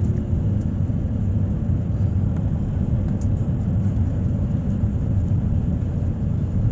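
Steady low rumble of an airliner's cabin noise, engines and airflow heard from inside the passenger cabin while the plane descends to land.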